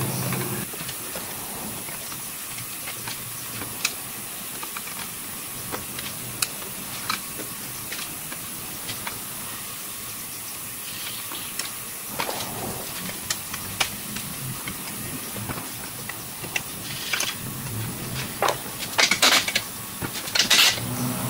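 Scattered light clicks and knocks of plastic push clips and screws being worked out of a car's plastic underbody engine cover, over a steady background hiss. Near the end, a few louder short bursts as a cordless drill-driver is put to the cover's 10 mm screws.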